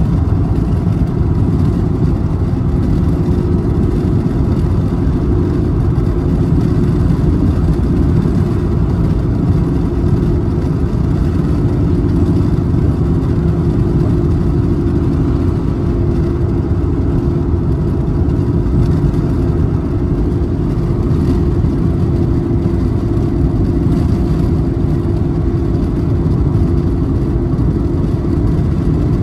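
Steady road noise inside a car cruising at highway speed: a low, even rumble of tyres and engine that does not change.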